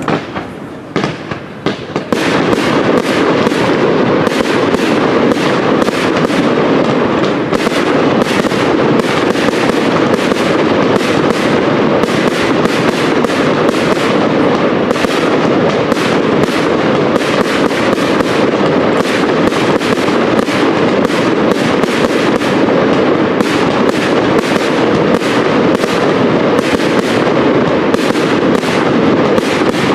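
Aerial fireworks display: a few separate shots, then from about two seconds in a dense, continuous barrage of shells launching and bursting.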